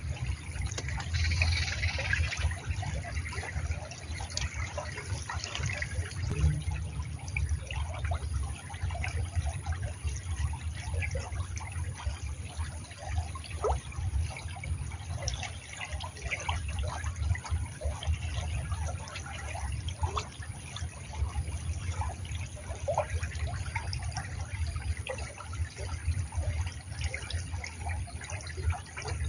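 Shallow river water trickling and lapping over stones, with scattered small drips and splashes, over a steady low rumble.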